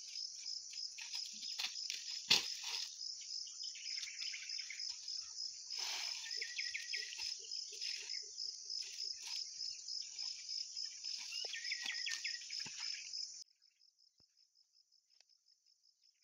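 Dried palm fronds rustling and crackling as they are handled, with a sharp crack about two seconds in, over a cricket-like insect chirring steadily in rapid pulses. Near the end the handling sounds stop abruptly and only a faint insect chirr remains.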